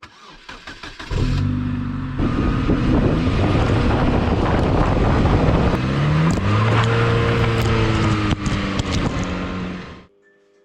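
Rolls-Royce Silver Shadow I V8 cranking briefly and catching about a second in, then revving up and settling back. The sound cuts off suddenly near the end.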